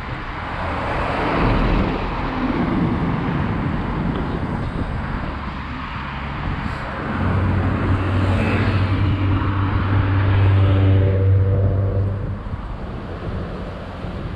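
Rough wind noise on the microphone, and from about halfway in a motor vehicle's engine hums steadily, loudest a little before the end, then fades.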